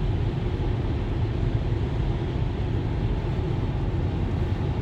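Steady road noise inside a moving car's cabin: tyres on the road and the engine giving an even low rumble.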